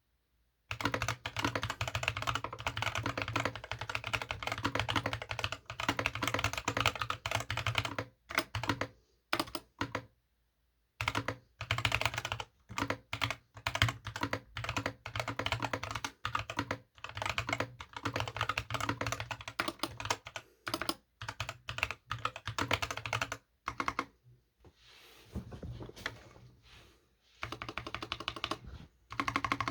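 Fast typing on a GK61X mechanical keyboard with Akko CS Ocean Blue tactile switches, DSA PBT keycaps and a tape-modded PCB, giving a deep keystroke sound. The typing breaks off for a few seconds about eight seconds in and grows softer near the end.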